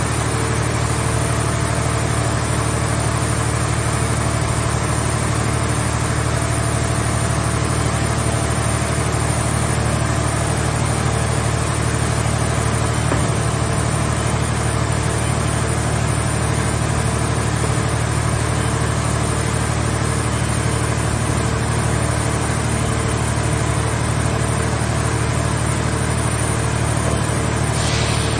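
Hydraulic car-body baler's power unit running steadily, a low even drone with a brief hiss near the end.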